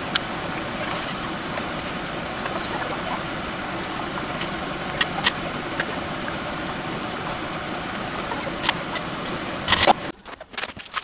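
Steady kitchen background noise with a few light metal clicks as a mesh skimmer taps against a large aluminium stockpot of simmering curry. Near the end comes a short metal clatter as the lid goes onto the pot, then the steady noise cuts off.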